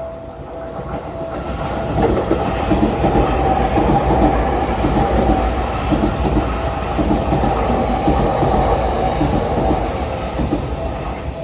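Seibu 40000 series electric commuter train passing over a level crossing, its wheels clacking over the rail joints. The noise swells over the first two seconds, holds, and fades near the end, with the crossing bells ringing underneath.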